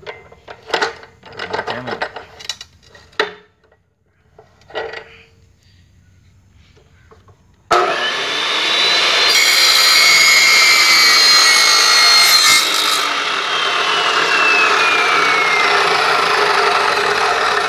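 A few sharp knocks in the first few seconds, then a pause. About eight seconds in, an electric chop saw fitted with a carbide-tipped wood-cutting circular blade starts abruptly and cuts through a rusty square steel tube, with a high grinding hiss for about four seconds. It then runs on, with a whine that slowly falls in pitch.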